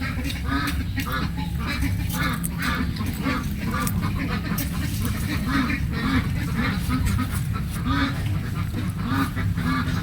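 Ducks quacking in a rapid, continuous series of short calls, with a steady low rumble underneath.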